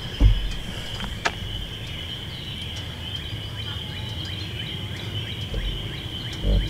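Insects chirping in a steady high-pitched evening chorus, with a few low bumps from the microphone being handled near the start and end.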